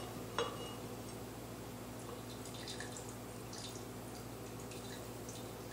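Lemon juice dripping and trickling from a reamer's bowl into a blender jar as a spatula scrapes the bowl. The sound is faint, with a single click about half a second in and scattered small ticks near the middle.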